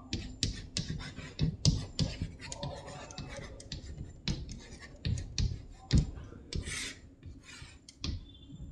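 Handwriting: short, irregular scratching strokes across a writing surface, with light taps and clicks in between.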